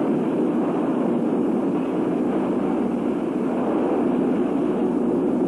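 Steady industrial roar of a steel mill as molten steel pours from a furnace, loud and even throughout.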